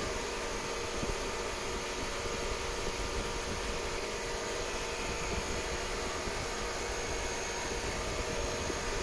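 Steady drone of a running fan motor: an even rush of air with a faint fixed hum.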